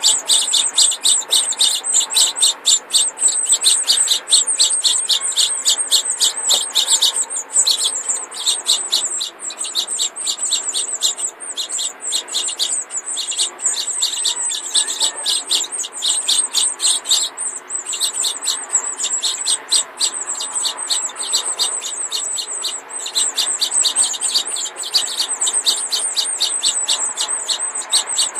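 Four house finch nestlings begging for food: a steady stream of rapid, high-pitched cheeping, several calls a second, broken by a few short pauses.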